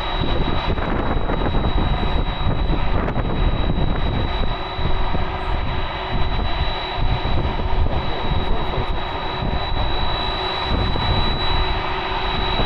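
Jet airliner engines running steadily: a dense rumble with a thin, steady high whine over it.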